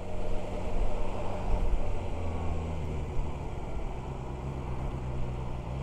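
BMW S1000XR's 999 cc inline-four engine running steadily at low revs as the motorcycle rolls slowly in traffic, under a steady hiss of road and wind noise.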